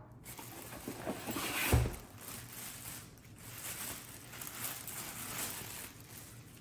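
Plastic packaging bags crinkling and rustling as items are lifted out of a soft tool bag, with a dull thump about two seconds in.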